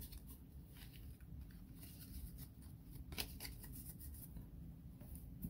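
Faint handling of a stack of trading cards: the cards slide and rub against one another as they are sorted and squared up, with a few light snaps, the clearest about three seconds in.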